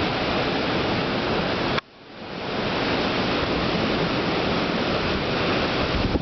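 Typhoon downpour and wind as a dense, steady rush of noise. It cuts out suddenly about two seconds in and swells back within a second.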